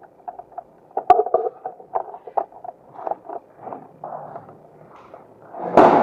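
Irregular footsteps and handling noises of a person moving through a house, with a sharp click about a second in and a louder bump near the end.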